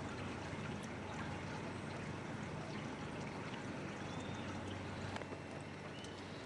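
Water trickling and lapping against a small boat's hull, with a steady low hum underneath. Two faint, short, high chirps come in the second half.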